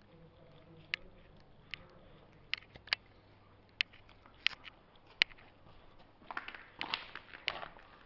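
Footsteps crunching on grit and rubble over a concrete floor: sharp, scattered clicks about once a second, becoming a denser crunching from about six seconds in.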